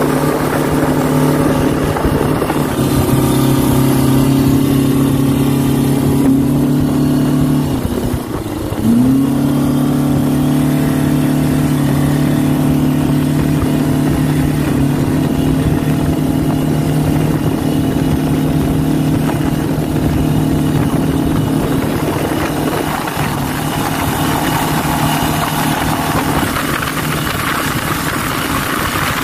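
Boat's outboard motor running at steady high throttle while towing a banana boat, over the rush of the wake and wind. About eight seconds in the revs dip briefly, then climb straight back up.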